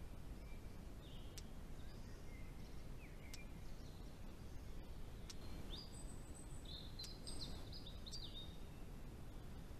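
Outdoor forest ambience: songbirds chirping and giving short whistled calls over a steady low background hum, with a few faint clicks.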